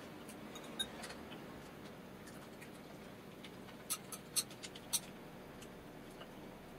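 Chopsticks and a spoon clicking and tapping against a stainless steel bowl while picking up food, with a quick run of sharper clicks about four to five seconds in.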